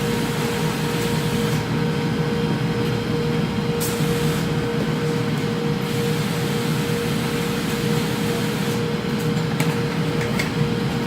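Factory machinery running steadily: a constant mechanical hum with a fixed tone, with a few light clicks about four seconds in and again near the end.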